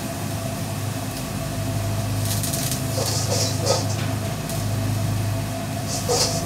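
Steady low machine hum of a food truck's kitchen equipment, with a few brief hissing or rustling bursts in the middle and near the end.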